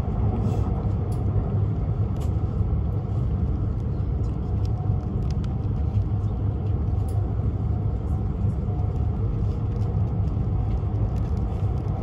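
Tohoku Shinkansen Hayabusa train running along the track, heard inside the passenger cabin: a steady low rumble with a few faint ticks.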